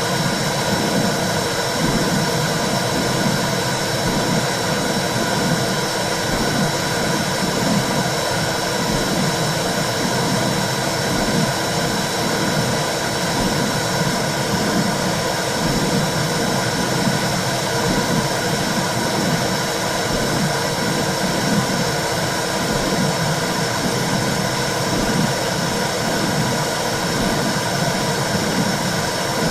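Womb sound for soothing a baby: a steady rushing hiss with a low whooshing pulse that repeats about once a second.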